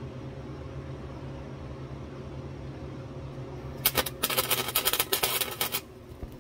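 Wire-feed welder arc crackling for about two seconds as a short weld is run on the car's underbody steel, starting about four seconds in and cutting off sharply. A steady low machine hum runs underneath.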